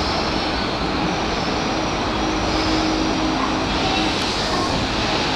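Steady running noise of a Keikyu 1500-series electric train standing at the platform just after arriving, with a faint steady hum partway through.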